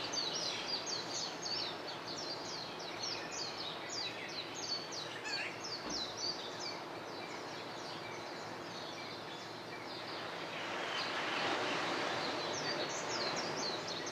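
Many small birds chirping at dawn, a dense run of quick, high, short chirps that thins out midway and picks up again near the end, over a steady outdoor rush that swells after about ten seconds.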